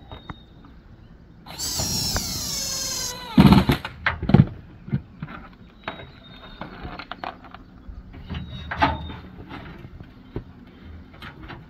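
Cordless drill driving a solar-panel mounting bolt into the camper roof: about a second and a half of high motor whine whose pitch sags as the bolt tightens. A few sharp knocks follow, then small handling clicks.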